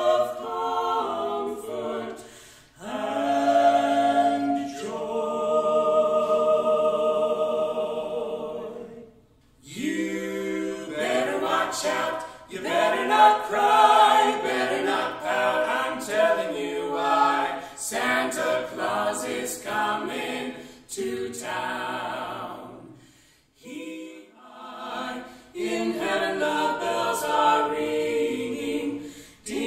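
Mixed vocal quartet of two women and two men singing a Christmas carol a cappella in four-part harmony. There are long held chords and a few short breaks between phrases.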